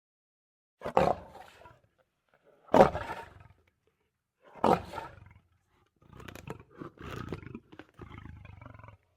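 Lion roaring: three loud, long roars that each fall in pitch, followed by a string of shorter, quieter grunting calls trailing off, the usual close of a lion's roaring bout.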